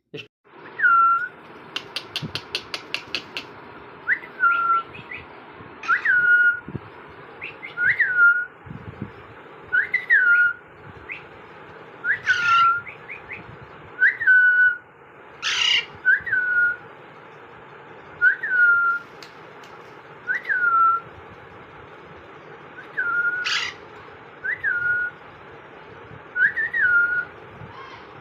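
Pet parrot whistling over and over, about one call every two seconds: each a quick upward flick that drops onto a short held note. A few sharp squawks are mixed in.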